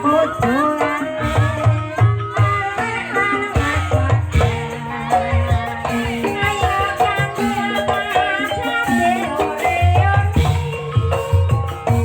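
Banyumasan gamelan music accompanying an ebeg horse dance: struck metal keys playing short pitched notes over steady drum beats.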